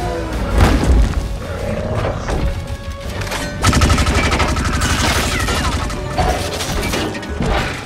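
Action-film soundtrack: a music score under heavy booms and impacts, with a long burst of rapid gunfire from an arm-mounted gun starting about halfway through.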